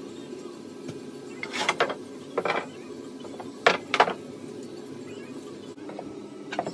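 Mahogany and maple strips knocking against each other and the workbench as they are pushed into line: a few sharp wooden knocks, the loudest two close together about four seconds in, over a steady low hum.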